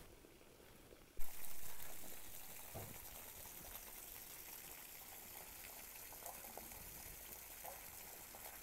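Water running from a garden hose onto the soil under an apple tree: a steady splashing hiss that comes in abruptly about a second in.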